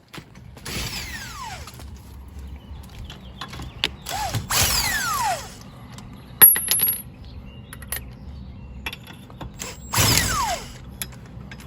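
Lug nuts being spun off a car wheel with a power tool: three runs of a whirring motor, each about a second long and falling in pitch, with metal clicks and clinks between.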